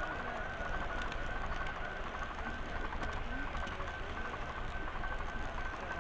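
Model train carrying a cab-view camera running along the track: a steady high whine that pulses quickly and evenly, over the rolling noise of the wheels on the rails.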